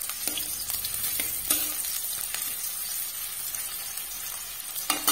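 Sliced onions sizzling steadily in hot mustard oil in a metal kadai, with a few light scrapes of a metal spatula as they are stirred. The onions are being fried until reddish-brown.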